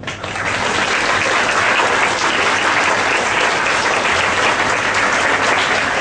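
Audience applauding: many people clapping together, breaking out at once and keeping on at a steady level.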